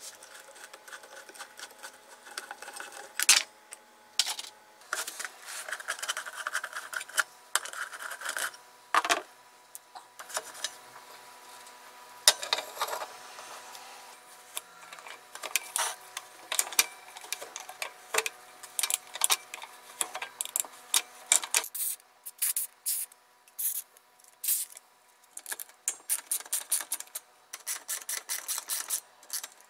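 Hand screwdrivers working on the screws and parts of a Porter-Cable 7724 portable band saw's aluminium housing, making irregular clicks, scrapes and small metal knocks. A faint steady hum underlies it and stops about two-thirds through. From then on the clicks come in a fast, dense run.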